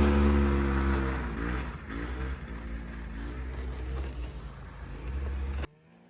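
Two-stroke snowmobile engine running and moving off, fading steadily with its pitch rising and falling as the throttle changes. It cuts off suddenly near the end.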